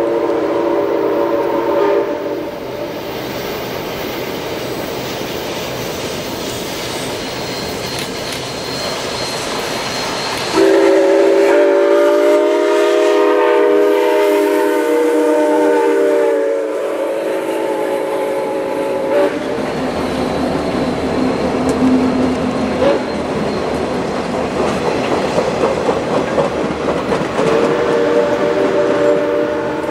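Chime steam whistle of CP 2816, a 1930 Canadian Pacific H1b 4-6-4 Hudson, sounding a long blast of about nine seconds starting about ten seconds in, with shorter blasts at the start and near the end. Between blasts the passing train's wheels rumble and clatter over the rail joints.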